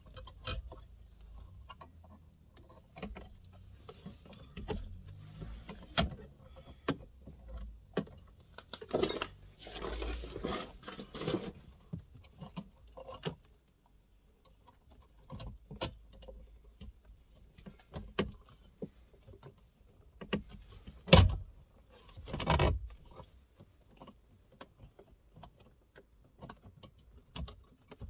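Irregular clicks, rattles and rustles of hands working a car's wiring loom and ECU connectors, with a longer rustling stretch about ten seconds in and one sharp knock about three-quarters of the way through.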